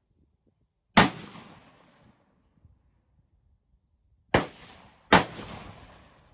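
Three rifle shots from a 5.56 AR-15 pistol with a 7.5-inch barrel: one about a second in, then two close together, less than a second apart, near the end. Each crack trails off in a long echo.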